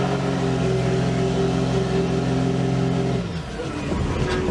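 Diesel engine of a lifted Dodge Ram pickup held at high, steady revs while it pours out black smoke, then let off about three seconds in.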